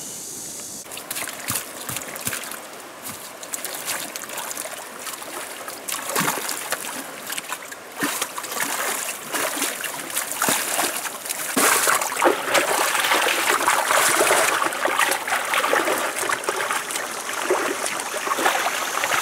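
Hands scooping and splashing in shallow muddy water, with irregular sloshing and trickling; it starts about a second in and grows louder past the middle.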